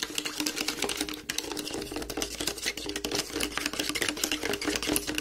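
Metal spoon stirring sugar into shampoo and water in a plastic bowl: a rapid, continuous run of scraping clicks, with the sugar not yet fully dissolved. A steady low hum runs beneath.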